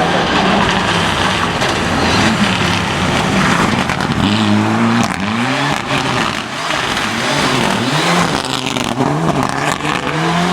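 Rally car engine under hard acceleration, its revs climbing and dropping several times with gear changes.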